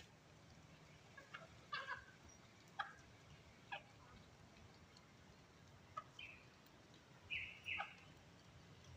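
Bantam chickens making a few short, quiet clucks while feeding, with the loudest pair of calls close together near the end.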